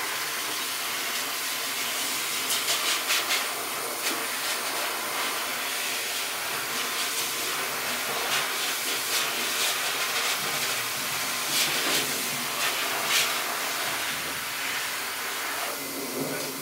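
Corded electric dog clippers running steadily as they shave through a Husky's thick coat, with a few short, louder rasps as the blade bites into the dense fur.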